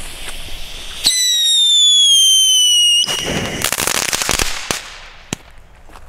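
Komet Blitzgewitter whistle fountain with crackle: the lit fuse sputters, then about a second in a loud whistle sounds for about two seconds, sliding slowly down in pitch, and cuts off sharply. A burst of dense crackling follows for about a second and a half, then a single sharp crack.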